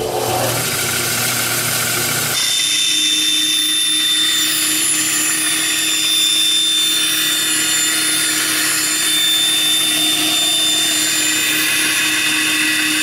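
Powermatic 14-inch bandsaw running, its blade ripping a board along the fence from about two seconds in: a steady cutting hiss with thin high tones over the motor's hum.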